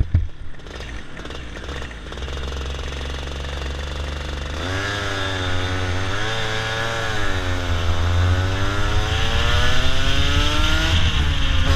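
Racing kart engine heard from the driver's seat. It runs low and steady for the first few seconds, then opens up hard about halfway through, its pitch wavering and then climbing steadily as it accelerates.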